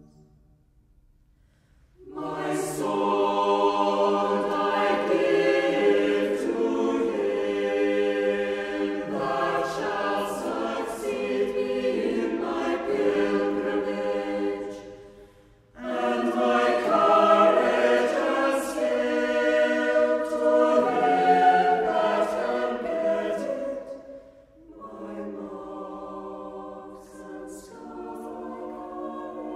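A choir singing in long sung phrases. It comes in about two seconds in, breaks off briefly near the middle, and goes on more softly near the end.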